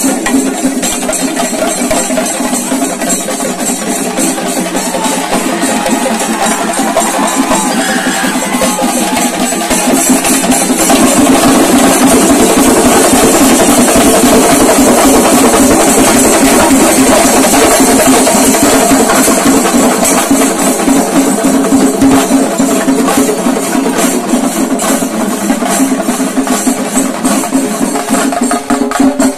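A large ensemble of chenda drums beaten with sticks in a fast, loud, continuous melam rhythm, growing louder about ten seconds in.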